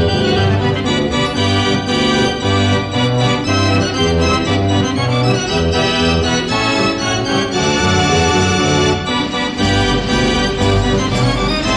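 Ruth band organ playing a tune, its pipes sounding a full chord-rich melody over bass notes that beat out a steady rhythm. A deeper bass line comes in near the end.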